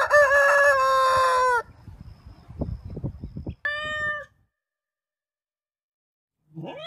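A rooster crows once, a loud held call about a second and a half long, followed by scattered soft clucking from the flock. A cat then gives a short meow, and after a near-silent pause another meow begins right at the end.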